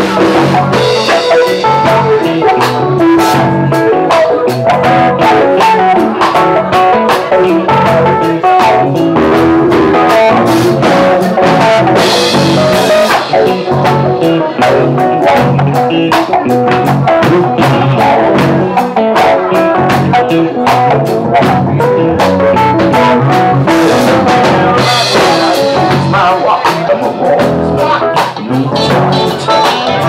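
Live band playing: keyboard, electric bass, electric guitar and drum kit together, loud and steady.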